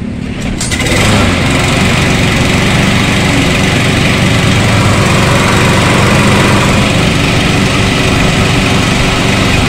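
Stihl RM 248 push lawn mower's single-cylinder four-stroke engine pull-started with the bail held down: it catches about a second in and then runs steadily.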